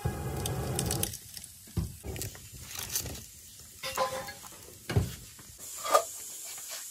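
Vegetables sizzling in a pot over a wood fire for about a second, then scattered knocks and clinks of aluminium pots and bowls, a couple of them ringing briefly.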